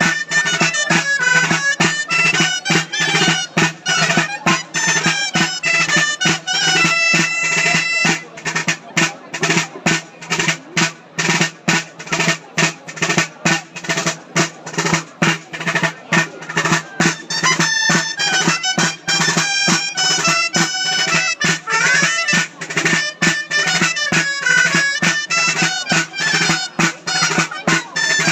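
Traditional folk dance music: a reed wind instrument playing a melody over a steady low drone, with a drum keeping a brisk, even beat.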